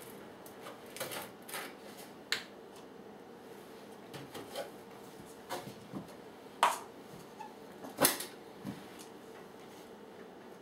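Scattered clicks and knocks of a red plastic gas can, a plastic milk jug and a cup being picked up and set down on a kitchen counter, with two louder knocks about six and a half and eight seconds in.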